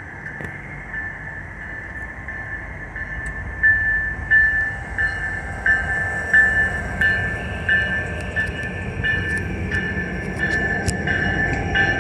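An approaching Norfolk Southern train: a low rumble builds steadily. Over it a bell rings in even strokes about one and a half times a second, growing louder from a few seconds in.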